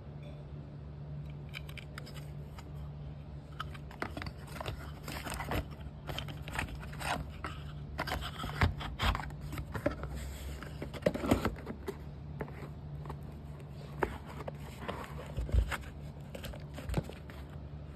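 Packaging being handled: plastic wrap rustling and a cardboard box knocking and scraping, in irregular clicks and crinkles that are busiest in the middle. A steady low hum runs underneath.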